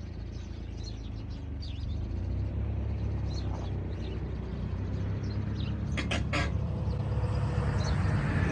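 A vehicle engine's low rumble, growing steadily louder, with birds chirping. A few sharp clicks come about six seconds in.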